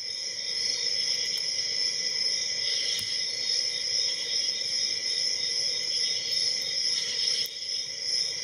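Steady high-pitched insect chirring, with a few faint metallic clicks as a hook pick works the pins of the padlock.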